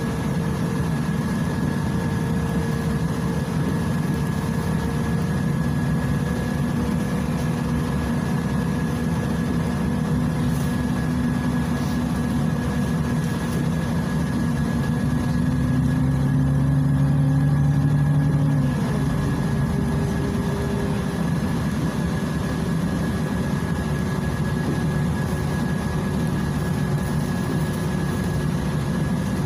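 Inside a Volgabus 5270G2 city bus under way: its Yuchai YC6L280N-52 compressed-natural-gas six-cylinder engine drones steadily, the pitch climbing slowly and growing louder as the bus gathers speed. About two-thirds of the way through, the pitch and loudness fall suddenly as the Voith DIWA automatic gearbox shifts up. A steady high whine runs under the drone.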